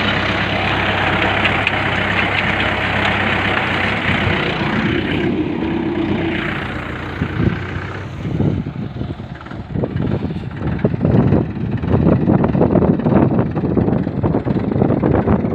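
Tractor's diesel engine running steadily under the load of a seed drill working the soil. From about halfway the engine sound drops back and gusts of wind buffet the microphone.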